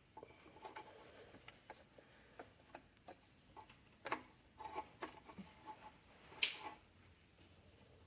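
Faint, irregular light clicks and knocks of hand tools at work on the engine, with one sharper knock about six and a half seconds in.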